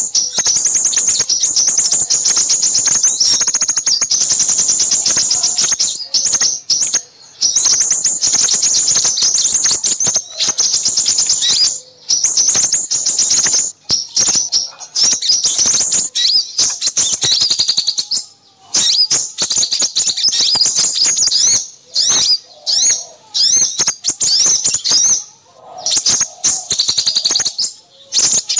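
Small songbirds chirping and trilling, with rapid high-pitched trills in runs of a few seconds broken by brief pauses. This is a bird-lure call recording used to draw in crimson sunbirds.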